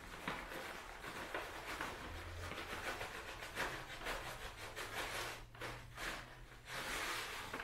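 Paper bag crackling and rustling as chopped dried madder root is tipped out of it slowly, the pieces pattering into a slow cooker pot of salt water. It comes in irregular spells, louder towards the end.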